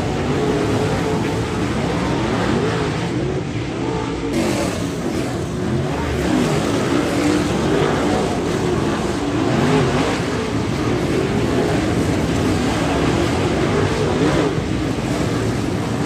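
A pack of dirt late model race cars' V8 engines running hard through a turn, many engines overlapping. Their pitches rise and fall as the drivers get on and off the throttle.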